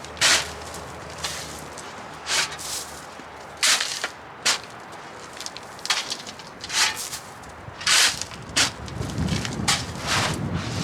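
Scattered short scuffs and rustles, about seven in ten seconds, with quiet between and no engine running.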